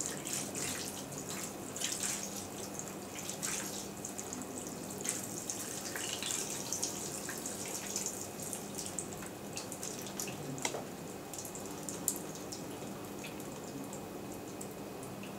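Water from a watering can falling on a handheld OTDR's case and the plastic tray under it, splashing and dripping in many small ticks. The splashes are dense at first and thin out to scattered drips in the second half.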